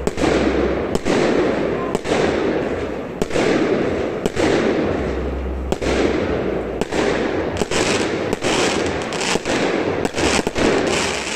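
Fireworks going off: aerial shells and rockets bursting in quick succession. Sharp bangs come about once or twice a second, faster towards the end, over a continuous dense din.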